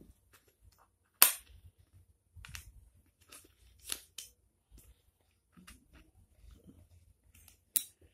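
Wooden Tetris puzzle pieces clacking as they are handled and set into a wooden tray: a sharp clack about a second in and another near the end, with lighter taps and knocks between.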